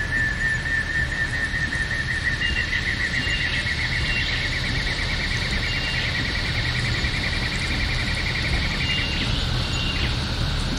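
Night-time nature ambience: one long, high, fast trill from a calling animal, creeping slightly up in pitch and stopping about nine seconds in, with short higher chirps now and then, over a low steady rumble.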